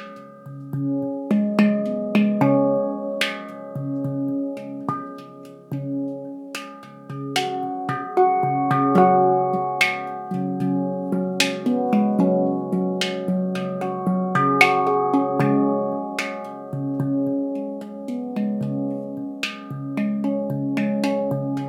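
Leaf Sound Sculpture handpan tuned to C# Ragadesh, played by hand: a melody of struck notes that ring on and overlap one another.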